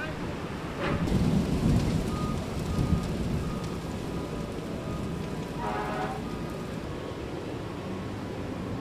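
Brush fire burning: a steady crackling rush of flames, with a louder low rumble between about one and three seconds in. A brief pitched sound stands out near the middle.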